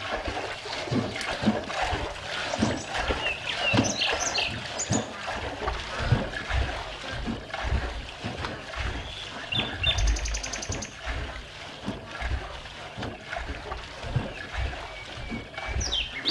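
Outdoor ambience: birds chirping now and then, a few short high calls, over a steady rustling noise with irregular low rumbling.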